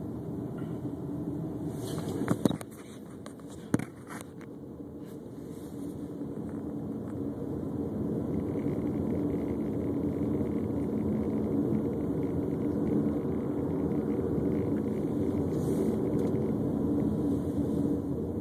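Steady in-car engine and road noise of a car driving along a highway. There are two sharp knocks, about two and a half and four seconds in, from the camera being handled as it is re-aimed. After them the noise swells slowly over several seconds.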